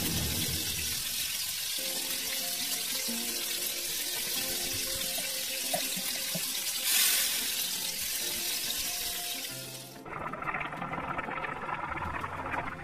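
Oil sizzling steadily in a small metal wok as chopped onions and tomatoes fry, with a brief louder surge about seven seconds in. The sizzle cuts off suddenly about ten seconds in, leaving soft background music.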